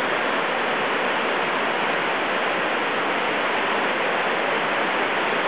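Waterfall rushing steadily, an even, unbroken wash of falling water.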